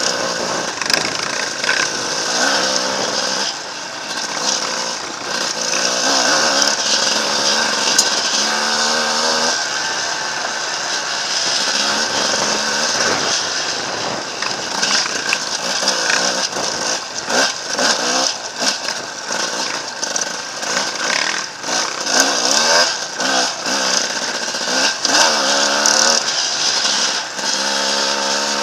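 Enduro dirt bike engine being ridden hard over rough ground, its pitch climbing and dropping repeatedly as the throttle is worked, with a run of quick revs near the end.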